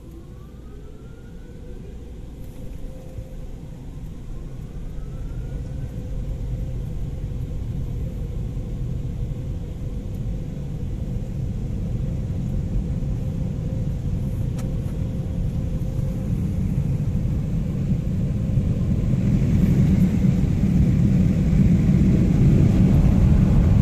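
Automatic car wash machinery heard from inside the car's cabin: a low rumble that grows steadily louder, with a faint steady hum and two faint rising whines in the first few seconds, and a light hiss joining near the end.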